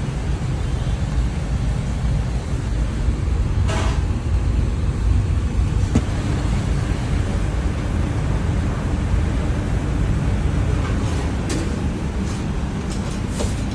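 Steady low background rumble, with a few short clicks and knocks scattered through it.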